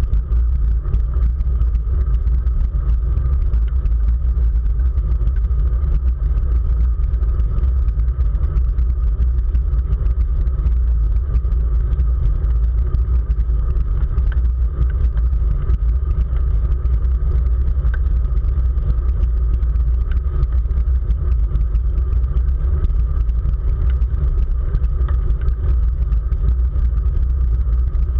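Loud, steady wind rumble on the microphone of a camera riding on a road bike at race speed.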